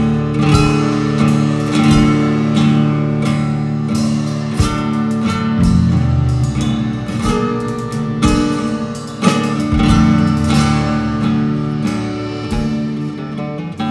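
Instrumental music from a live band, led by a nylon-string acoustic guitar playing rhythmic strums and plucked notes over held notes and low drum hits.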